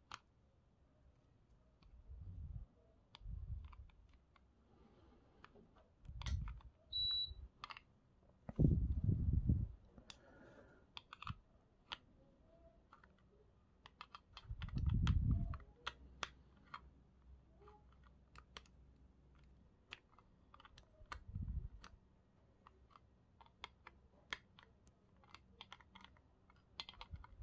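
Scattered light clicks and taps as small metal reel parts and tools are handled during disassembly, with several dull thumps, the loudest about nine and fifteen seconds in.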